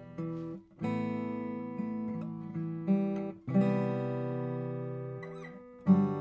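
Bourgeois OMS 12-fret acoustic guitar, Adirondack spruce top with Madagascar rosewood back and sides, played as chords struck and left to ring. A new chord comes every second or so, with a short gap just before one second in.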